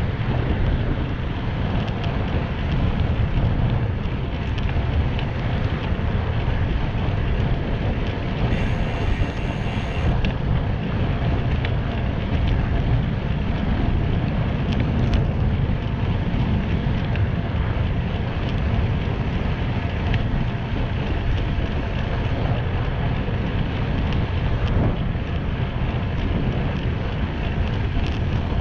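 Steady wind noise on the microphone of a bicycle moving at about 16 mph, a constant low rushing, mixed with the tyres rolling on coarse asphalt. A brief higher-pitched sound comes in about nine seconds in.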